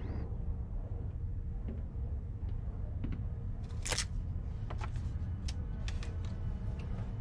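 Steady low hum of a submarine interior, with scattered faint clicks and one sharper click about four seconds in.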